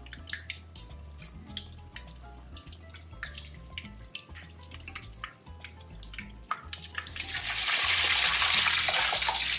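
Egg-dipped bread slice going into hot frying oil, which breaks into a loud sizzle about seven seconds in. Before that the oil crackles softly over faint background music.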